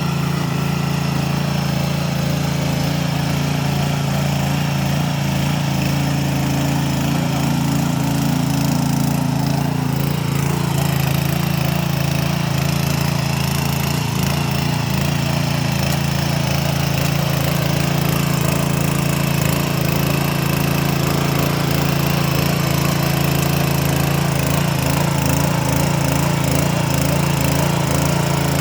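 Single-cylinder engine of a patpat walking tractor (motor hoe) running steadily with an even hum.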